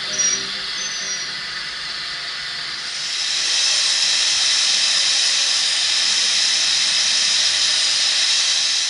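Small saddle-tank steam locomotive blowing steam from its open cylinder drain cocks: a steady hiss that grows louder about three seconds in and then holds.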